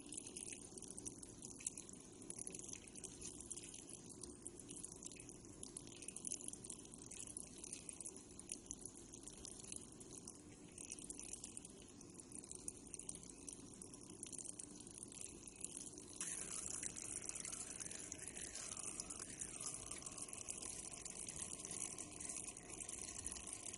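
Water running through a household pipe: a steady rushing hiss with a fine trickling, gurgling texture, turning a little louder and fuller about two-thirds of the way through.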